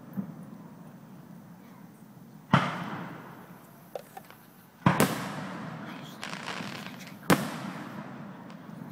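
Fireworks display: aerial firework shells booming three times, about two and a half seconds apart, each bang trailing off in a long fading echo. A couple of faint pops fall between the first two.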